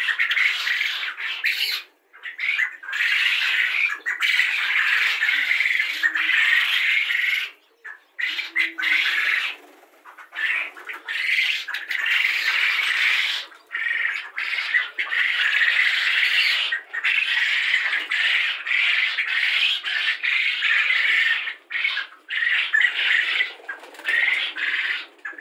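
Dense chorus of many young Japanese quail chirping and peeping together, cutting out suddenly for brief moments a few times.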